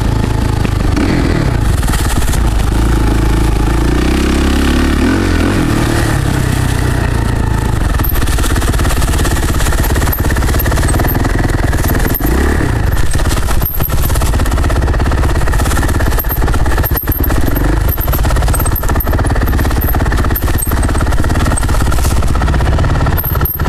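Handheld camera rushed through dry fallen leaves: steady rustling, scuffing and crunching of leaves with heavy handling rumble, broken by many small knocks and scrapes.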